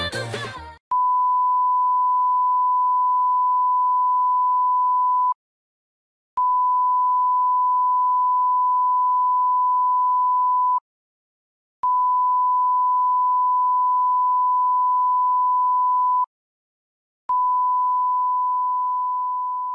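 A steady electronic test-tone beep, one pure high tone held for about four and a half seconds at a time with about a second of silence between, four times over, the last one fading out. Music fades out just before the first tone.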